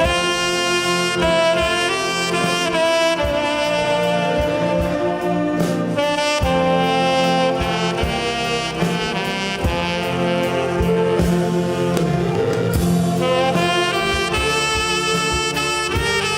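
Tenor saxophone playing a ballad melody in long held notes over a saxophone ensemble accompaniment, with light drum beats underneath.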